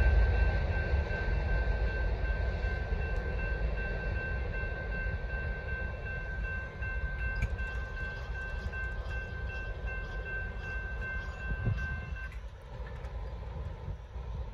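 Railroad crossing bell ringing steadily while the gates rise, and stopping suddenly about 12 seconds in. Under it, the low rumble of the departing freight train's covered hopper cars fades away.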